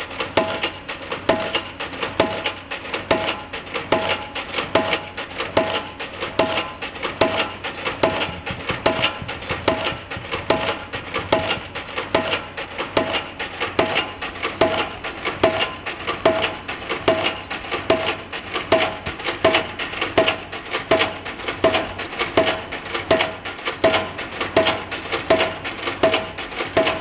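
Pile-driving hammer striking a pile in a steady rhythm, a little faster than one blow a second, each blow a sharp strike with a short ring at the same pitch.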